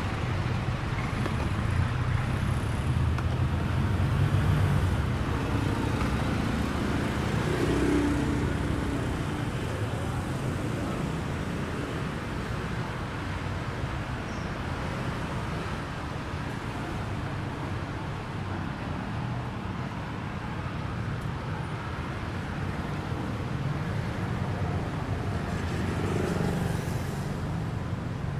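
Street traffic: engines of passing cars and motorbikes over a steady hum of road noise, louder through the first ten seconds or so, with another vehicle passing near the end.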